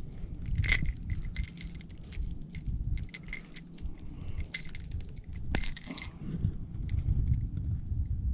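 Treble hooks and metal hardware of a topwater lure clinking and jangling in quick clusters of light clicks as the lure is worked free of a largemouth bass by hand, over a steady low rumble.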